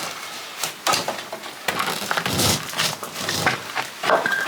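A heavy stone slab being levered up with a pry bar: irregular scraping, knocking and gritty crunching of stone shifting against stone and soil.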